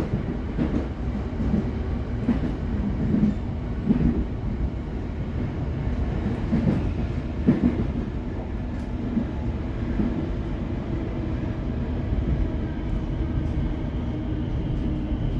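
Suburban electric train running between stations, heard from inside the carriage: a steady low rumble with irregular knocks from the wheels over the track.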